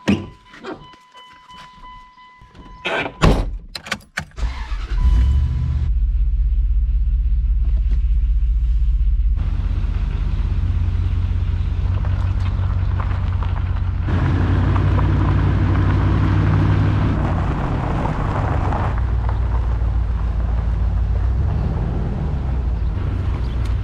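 Pickup truck: a steady electronic beep and some clicks, then the engine starts about four seconds in and runs steadily with a low rumble as the truck drives off.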